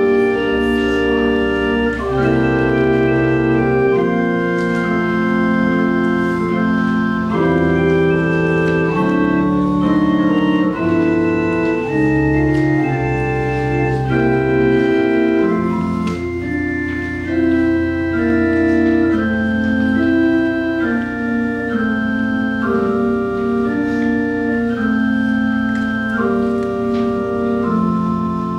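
Organ music: slow, held chords that change about every second over long, sustained bass notes.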